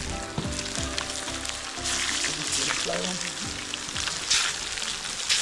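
Chicken frying in a pot of hot oil over an open fire: a steady sizzle that grows louder about two seconds in.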